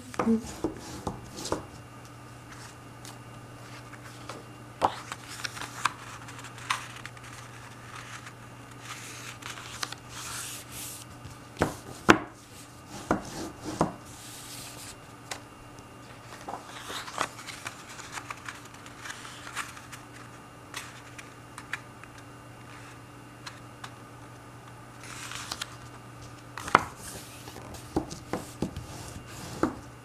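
Hands handling card stock and a glue stick on a tabletop: scattered taps and clicks as card and the glue stick are set down, with a few short stretches of paper rubbing and sliding, over a steady low hum.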